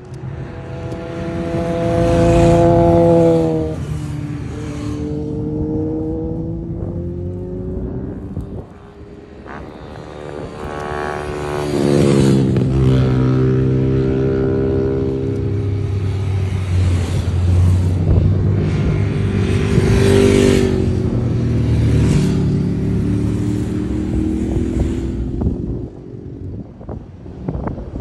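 Motorcycles passing at speed one after another, each engine rising in pitch on the approach and dropping as it goes by. One bike passes about three seconds in, and a string of bikes follows from about twelve seconds until near the end.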